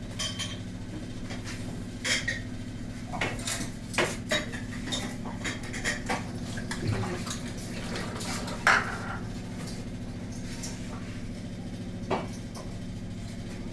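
Steel kitchen utensils clinking and clanking at irregular intervals as pots, plates and spoons are handled, with the loudest clank about nine seconds in, over a steady low hum.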